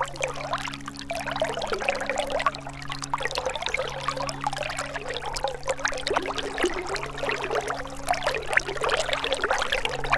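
A gentle river's water trickling and splashing over stones in a steady, busy flow. A low steady hum runs underneath and briefly drops out a few times.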